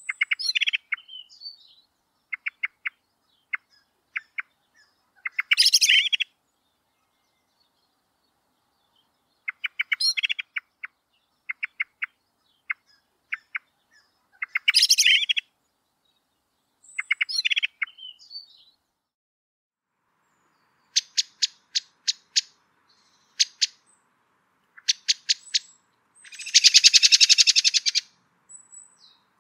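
Common blackbird calling: runs of sharp clicking notes, each breaking into a louder rattling chatter, repeated every few seconds. About twenty seconds in, a different call takes over: faster sharp clicks and then one long, loud rattle near the end.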